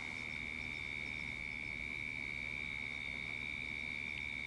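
A single steady high-pitched tone, held without wavering after a brief upward slide at its start.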